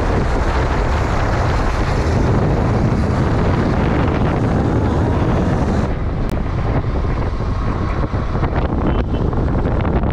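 Wind rushing over the microphone of a moving motorcycle, with the engine and road noise running underneath. About six seconds in the hiss thins abruptly and the rush carries on lower.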